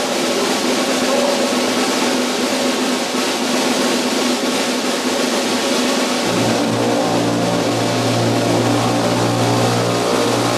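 Guggenmusik band playing: brass with trumpets, trombones and sousaphones over snare drums, bass drums and a drum kit. A deep bass line comes in about six seconds in.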